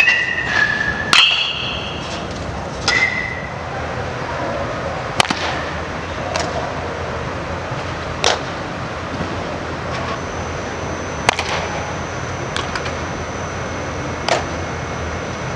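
Sharp single smacks of baseball practice over a steady background hum: a bat striking pitched balls with a brief ring in the first few seconds, then balls cracking off a glove or net every two to three seconds.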